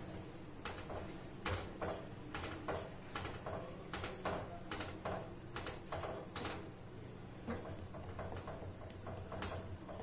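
Wooden spatula knocking and scraping against a nonstick pan while stirring a thick semolina, sugar and water mixture, two or three knocks a second for most of the time and fewer near the end, over a steady low hum.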